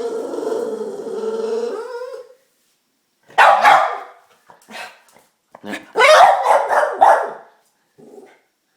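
Dog vocalising in excitement over a treat: a long, wavering whine-like call for about two seconds, then a loud bark and, a couple of seconds later, a quick run of barks and yips.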